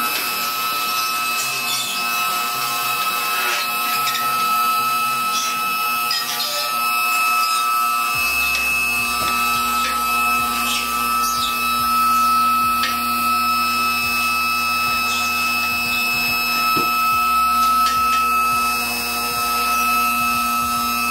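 Vehicle lift's electric motor and pump switching on abruptly and running with a steady whine as it raises the car.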